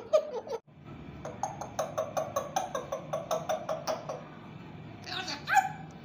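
African grey parrot calling: a short utterance at the start, then a quick run of short, evenly spaced calls, about five a second for nearly three seconds, and one more sliding call near the end.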